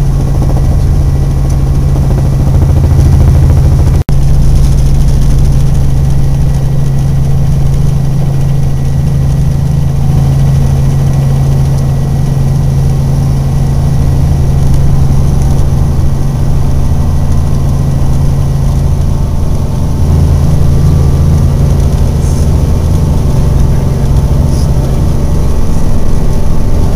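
Helicopter in flight heard from inside the cabin: a loud, steady drone of rotor and engine, with a momentary dropout about four seconds in.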